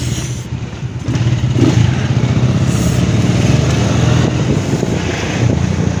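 Motorcycle engine running as the bike rides along, a steady low pulsing note that gets louder about a second in.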